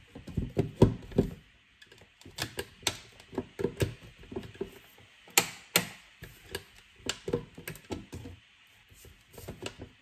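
Repeated plastic clunks and knocks as a NutriBullet blender cup full of strawberries is pushed down and twisted on its base. The motor never starts, because the blender is not plugged in.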